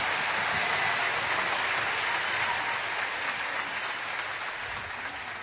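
Audience applause fading out steadily.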